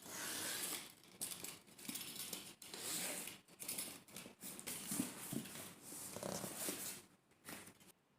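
Irregular rustling and light clattering of objects being handled, with scattered clicks, stopping about eight seconds in.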